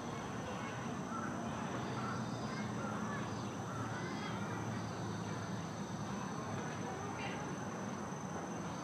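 Outdoor background of indistinct, murmuring voices over a steady, high-pitched insect drone.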